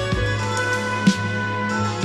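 Instrumental background music: held pitched notes with a soft drum beat, a drum hit about a second in.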